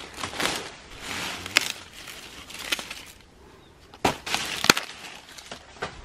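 Sweet corn plants rustling as they are handled, with several sharp snaps as ears of corn are broken off the stalks by hand.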